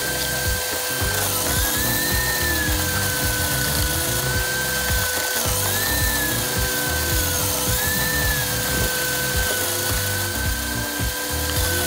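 Ryobi RSH3045U 3000 W electric milling-cutter garden shredder running with a steady whine. Three times its pitch sags and then recovers as the cutter grips and chews through branches, the motor slowing under the load.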